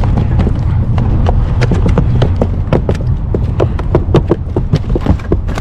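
Freshly landed salmon flopping on the boat's deck, a rapid, irregular run of knocks and slaps against the hull floor, over a steady low rumble.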